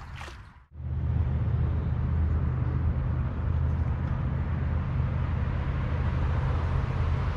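Steady low hum of an electric motor on a bass boat. It starts abruptly just under a second in and holds constant.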